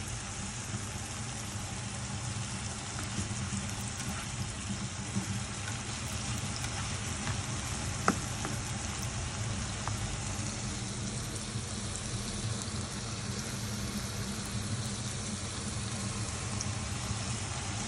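Sliced eggplant, onion and tomato sizzling steadily in oil in a non-stick frying pan, with a spatula clicking sharply against the pan once about eight seconds in.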